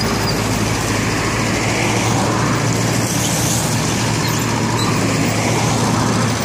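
Hanix H45A mini excavator's diesel engine running steadily at working revs as the boom and bucket dig and spread wet soil, with a brief rising whine about three seconds in.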